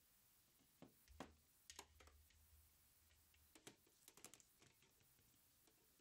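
Faint clicks and light taps, a dozen or so scattered irregularly, as a small monitor and its cables are handled and set down, over a faint low hum from about one to three and a half seconds in.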